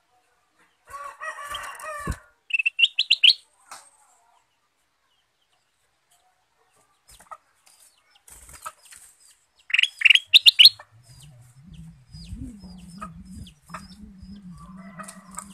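Caged kutilang emas (ruby-throated bulbul) moving about with wing flaps and giving two short runs of quick, rising chirps, the second about ten seconds in and louder. A low steady hum comes in near the end.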